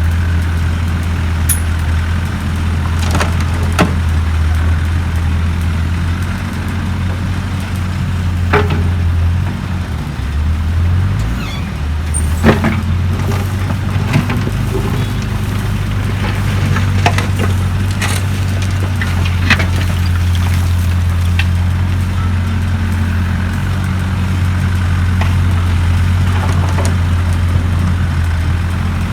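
Diesel engine of a Doosan DX55 wheeled excavator running steadily while loading soil and rock, its pitch dipping briefly under load about a third of the way in. A dozen sharp knocks are scattered through it.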